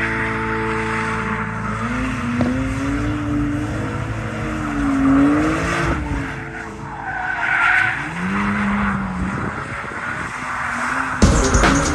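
BMW E36 drift car sliding through the corners, its engine revs rising and falling repeatedly while the rear tyres squeal. About a second before the end it is cut off abruptly by loud electronic music.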